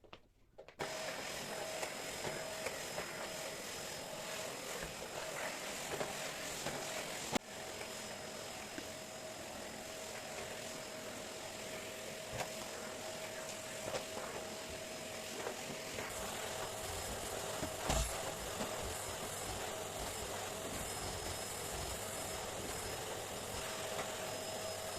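Vacuum cleaner running steadily with a constant whine. It starts abruptly about a second in and cuts off at the very end, with a sharp click and a knock along the way.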